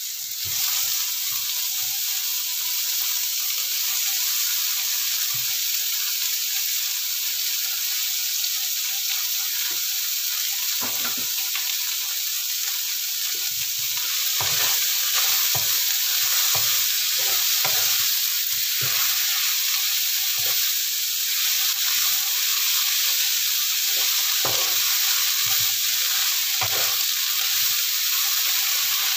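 Cassava and papaya leaves sizzling in hot oil in a wok: a steady frying hiss. A wooden spatula scrapes and knocks against the pan as the leaves are stirred, more often in the second half.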